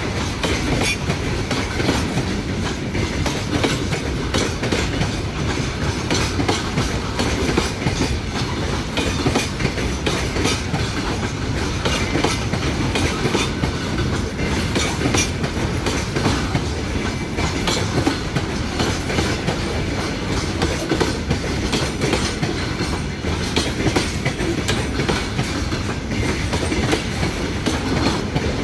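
A train's wagons rolling past, wheels clacking steadily over the rail joints.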